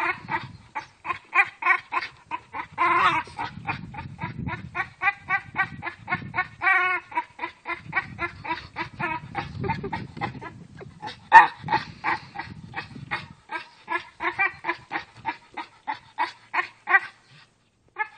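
Staffordshire Bull Terrier making rapid, rhythmic pitched grunting whines, about four a second, as it breathes hard with its mouth on a hanging tire swing. There is one louder cry about eleven seconds in.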